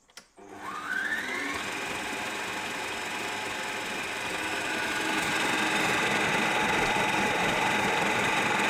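Electric food mixer switched on about half a second in, its motor whine rising as it spins up and then running steadily, working butter into flour toward a breadcrumb texture.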